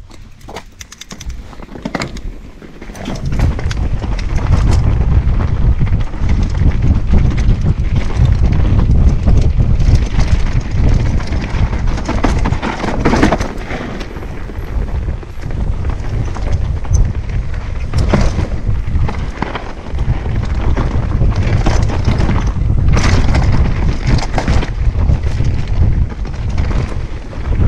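Mountain bike descending a dirt and rock trail: heavy wind buffeting on the microphone, with frequent rattles and knocks from the bike as it rolls over rocks and roots. It starts quieter and grows loud about three seconds in.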